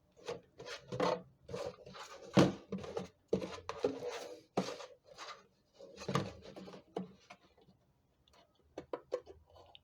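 Irregular scraping and rasping of a recycled container being cut by hand, a run of short strokes that thins out to a few light clicks after about seven seconds.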